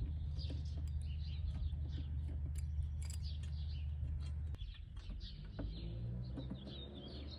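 Small birds chirping repeatedly, over a steady low hum that drops away about four and a half seconds in.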